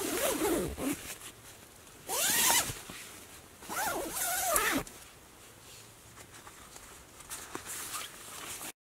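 Tent door zipper pulled in three strokes about two seconds apart, each rising and falling in pitch with the speed of the pull.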